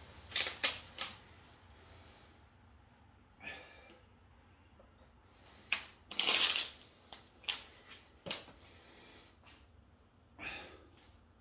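Plastic water bottle crackling and clicking in the hand while being drunk from and handled: a few short crinkles, with the loudest burst of crackling about six seconds in.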